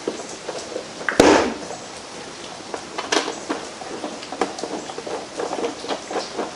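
Small clicks, taps and rattles of parts being handled and fitted on a small engine's shroud, with one louder knock about a second in. The engine is not running.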